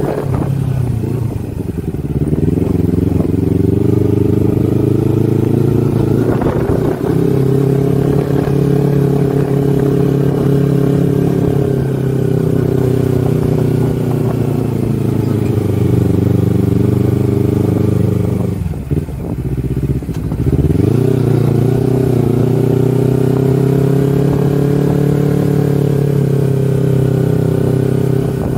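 Kawasaki Versys 250's parallel-twin engine running under way. Its note holds steady, dips and recovers near the start, and falls sharply about two-thirds through before climbing back.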